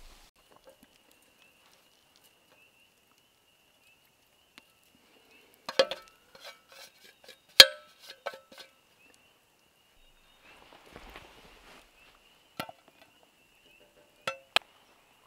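Metal cookware clinking: an enamelware plate and utensils knocking against a cast-iron skillet and the wire grill grate over a campfire. There is a quick run of clinks about six seconds in, the sharpest about halfway through, and a few single clinks near the end. A faint steady high tone lies under it.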